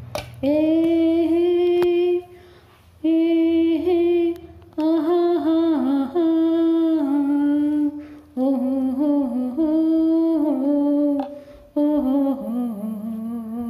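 A woman humming a melody without words, in about five held phrases with short pauses between them.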